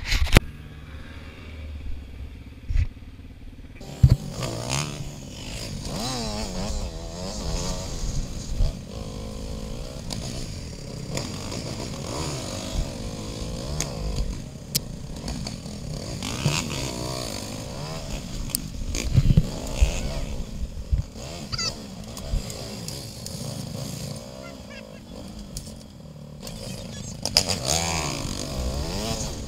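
A Yamaha TT-R dirt bike's single-cylinder four-stroke engine being ridden, heard close up: from about four seconds in, the engine note keeps rising and falling with the throttle. Occasional sharp knocks come through as well.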